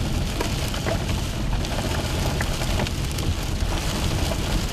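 Hail pelting a vehicle: a dense, steady patter of many small impacts over a low, continuous rumble.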